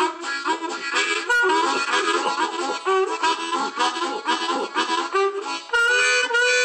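Blues harp (harmonica) played with cupped hands: a fast run of short notes and chords, settling into a held chord near the end.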